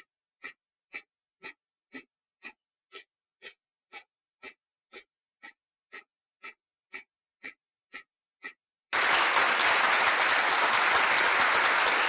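Countdown timer ticking steadily, about two ticks a second. About nine seconds in, the ticks give way to a loud burst of applause sound effect.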